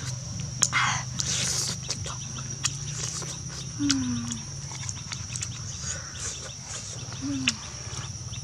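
Close-up eating sounds, wet chewing, lip smacking and the small clicks of meat being torn from a cooked chicken piece, over a steady high-pitched insect drone.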